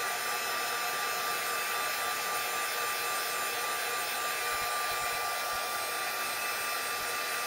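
Embossing heat tool blowing hot air steadily, with a constant high whine over the rush of air, drying a bead of wet ink on an acetate panel.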